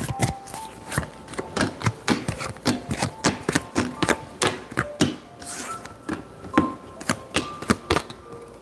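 Tarot cards being shuffled and dealt onto a table: an irregular run of quick clicks and taps, several a second.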